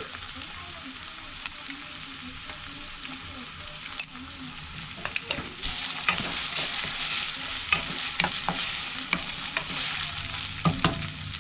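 Minced meat sizzling in a nonstick frying pan as it is stir-fried with a wooden spatula, with frequent clicks and scrapes of the spatula against the pan. The sizzle gets louder a little past halfway.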